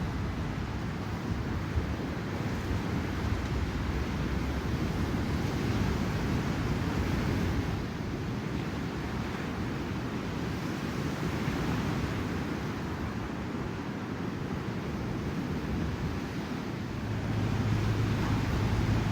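Ocean surf breaking, with wind buffeting the microphone. About seventeen seconds in, a steady low hum joins and the sound grows louder.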